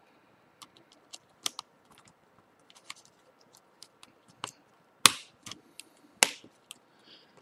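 Small plastic clicks and taps as a Samsung Galaxy S4's loudspeaker module is fitted into the phone, with two louder snaps about five and six seconds in.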